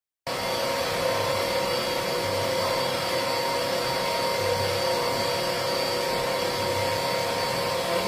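Portable bucket-mounted mini washing machine running: its small electric motor gives a steady hum with a high whine as it churns clothes in a bucket of soapy water.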